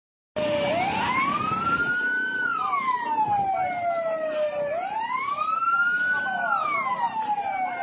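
Emergency siren wailing: a slow rise and fall in pitch, two full cycles of about four seconds each, over a noisy background.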